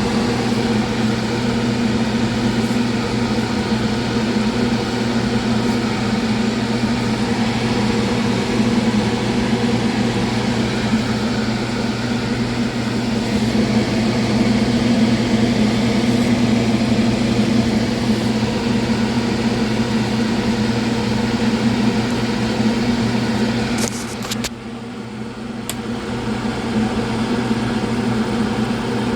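Steady fan hum with a low, even drone. About 24 seconds in it dips briefly, with a few short clicks.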